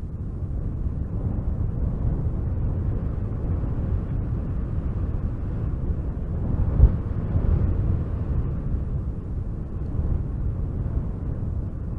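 Wind blowing in gusts: a low rumbling rush that swells and eases, with a sharper gust about seven seconds in.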